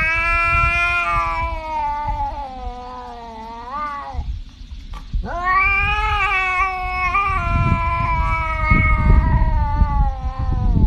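A cat yowling in two long drawn-out calls, the first lasting about four seconds and the second starting about a second later and running longer.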